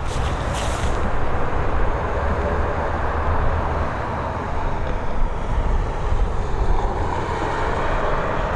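Boeing 737 airliner landing with its nose wheel lost: steady jet noise with a deep rumble underneath.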